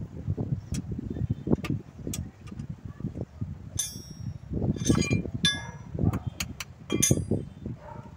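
Hand wrench clinking against the bolts and steel engine-support bracket: a run of sharp metallic clicks and several ringing clinks about four to seven seconds in, over a steady low rumble.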